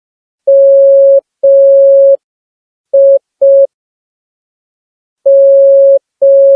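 Morse code sidetone from a smartphone Morse code practice app: a single steady beep keyed on and off, two long and two short beeps (dah-dah-dit-dit, the letter Z), a pause, then two more long beeps near the end.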